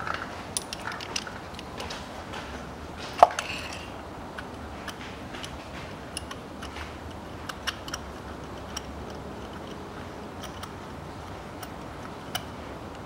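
Light, irregular metallic clicks and ticks of a spark plug socket on an extension bar being turned by hand to thread a new spark plug into the cylinder head, with one sharper knock about three seconds in.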